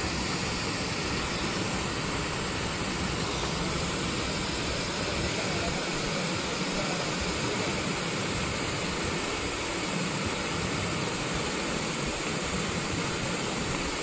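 Steady rush of two small waterfalls spilling beneath a stone arch bridge.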